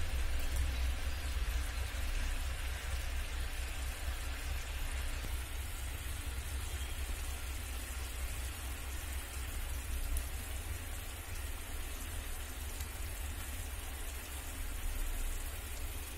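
Sugar syrup boiling in a kadhai: a steady bubbling hiss with a low hum underneath.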